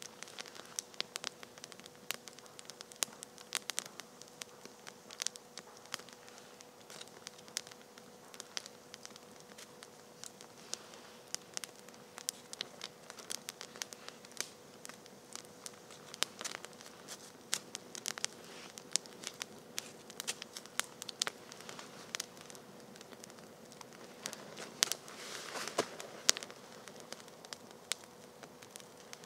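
Wood campfire of sticks and branches crackling, with irregular sharp pops and snaps; a denser spell of crackling and rustling about 25 seconds in.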